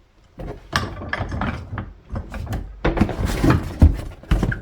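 Irregular knocks, clacks and rubbing from parts and tools being handled on a workbench during the cleanup after honing engine cylinders, starting about half a second in.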